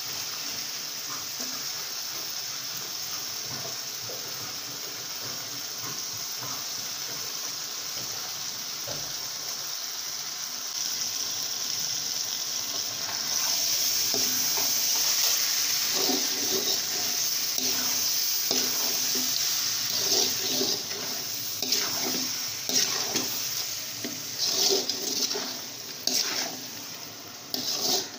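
Raw prawns sizzling in hot masala in a metal pot, a steady hiss that grows louder about halfway through. In the second half, a slotted metal ladle stirs and scrapes the pot in irregular strokes.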